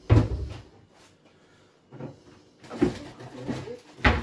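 Kitchen cupboard opened and closed while someone searches through it for a tin: three sharp knocks, one at the start, one near three seconds and one near the end.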